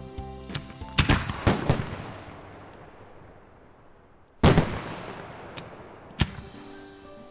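Fireworks going off: a few sharp bangs about a second in, the loudest bang about four and a half seconds in and another near the end, each fading away in a long echo. Music plays underneath at the start and near the end.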